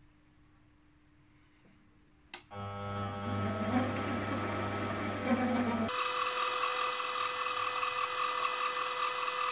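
Sieg C3 mini lathe switched on with a click about two seconds in, then running with a steady motor and gear whine as it turns the workpiece for an oil groove. About six seconds in the sound jumps abruptly higher and hissier where the footage is sped up fivefold.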